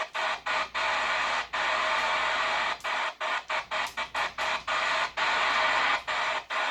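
CB radio receiver hiss, chopped by rapid, irregular dropouts several times a second: signal flutter from what is called weird skip on a night of bad conditions.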